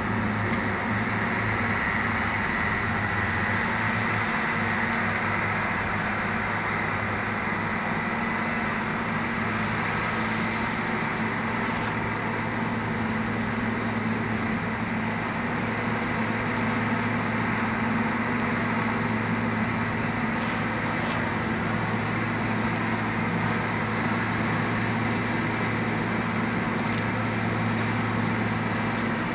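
Case crawler bulldozer's diesel engine running steadily with a constant low hum, joined by a few faint high ticks now and then.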